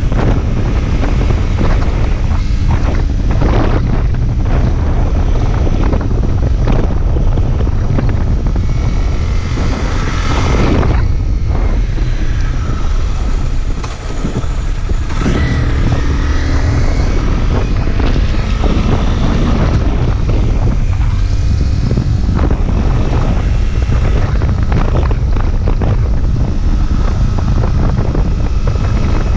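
Riding a sport motorcycle at about 35 mph: wind buffeting the microphone over the steady rumble of the engine. The engine note rises and falls a couple of times around the middle.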